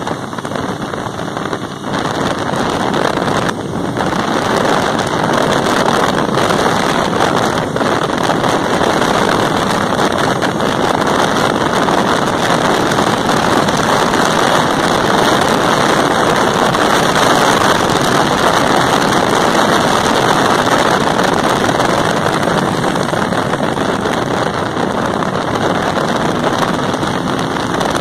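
Riding noise recorded on a moving motorcycle: a steady rush of wind over the microphone mixed with engine and tyre noise, growing louder about three seconds in and then holding. A faint engine note rises near the end.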